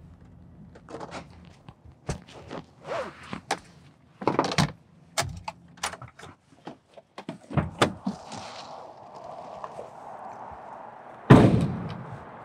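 A run of short, irregular knocks and rustles as someone moves about inside a van's cab, then the Chevrolet van's door is slammed shut with a loud thud near the end.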